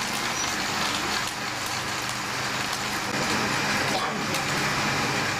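Several countertop blenders running at once, their motors whirring steadily with a low hum as they churn a watery mix.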